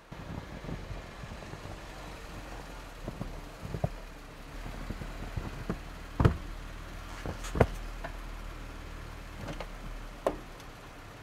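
Jeep Wrangler engine running as the Jeep creeps forward on snow on 33-inch all-terrain tyres, with a steady low hum and a few sharp knocks, the loudest about six seconds in.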